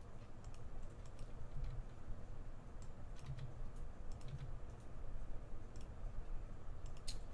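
Typing on a computer keyboard: scattered, irregular key clicks over a low steady hum.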